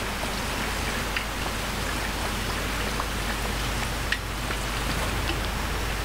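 Steady, even outdoor hiss with a few faint short ticks scattered through it.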